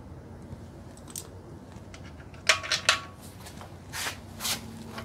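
Small metal parts or hand tools clinking. Three quick sharp clinks with a short ring come about halfway through, followed by two softer scraping handling sounds near the end.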